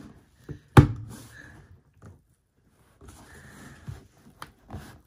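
A sharp knock about a second in, then scraping, rustling and small clicks from a large stapled cardboard shipping box being pried open by hand.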